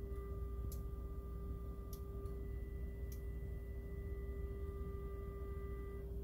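Steady electronic hum and tones from audio test-bench equipment: a low hum with a steady mid-pitched tone and two fainter higher tones that stop near the end. A few faint ticks come about a second apart in the first half.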